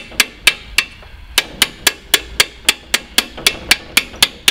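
Rapid metallic tapping, about four sharp knocks a second with a short pause about a second in: an open-end spanner striking the muffler's aluminium lock tab to fold it over against a bolt head.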